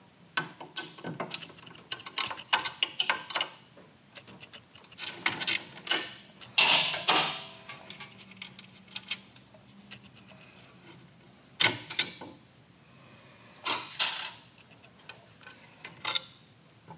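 Hand wrenches clicking and clinking on steel bolts in irregular bursts, with a few louder metallic scrapes, as the footboard mounting bolts are loosened and backed out.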